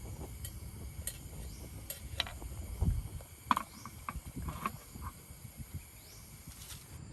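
A steady chorus of insects, with a low rumble and scattered clicks and knocks, the loudest about three seconds in.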